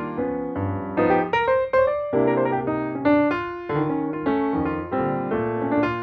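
Background piano music: a flowing run of single notes and chords, each note struck and then dying away.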